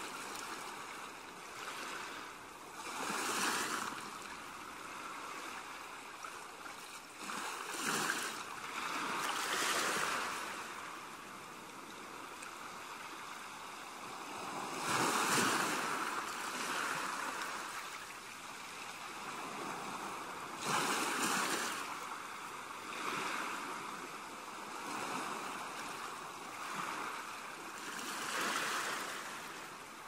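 Ocean waves breaking and washing up a beach: a steady hiss of surf that swells and falls with each wave every few seconds, the biggest surge about halfway through.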